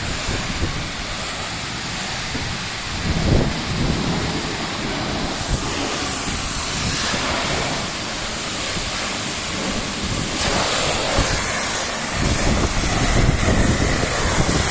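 Annovi Reverberi triplex plunger high-pressure washer running, its water jet spraying with a steady hiss over a low rumble.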